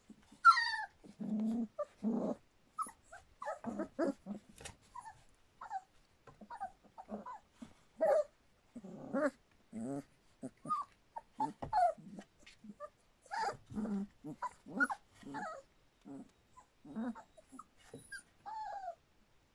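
Litter of three-week-old standard poodle puppies calling as they play-wrestle: many short, high puppy cries and yips, some sliding down in pitch, overlapping one after another.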